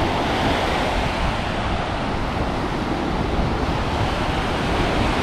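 Ocean waves washing on a beach, a steady rushing noise, with wind buffeting the microphone.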